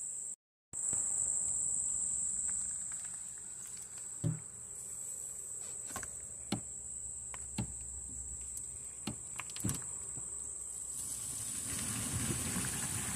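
Crickets chirping in a steady high drone, with several sharp clicks and knocks as the RV's black and gray waste tank valve handles are worked. Near the end a rushing sound builds: gray water starting to flow out through the sewer hose.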